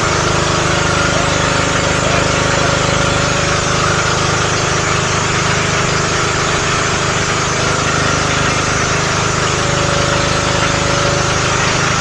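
Outrigger boat's engine running steadily, heard from on board.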